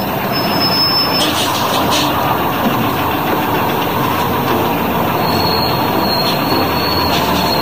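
Steady, loud rumble of a moving vehicle, a vehicle sound effect dubbed over the toy play, with thin high squealing tones near the start and again from about five seconds in.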